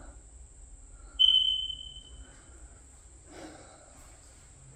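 A smoke alarm gives a single high-pitched chirp about a second in, starting sharply and fading out over a second or so. A lone chirp like this is typical of a smoke alarm's low-battery warning.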